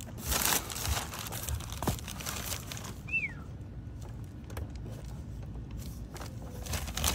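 Plastic wrapping and foam packing sheet crinkling and rustling as they are pulled off a new car bumper, in loud bursts during the first second, then softer, scattered crackles.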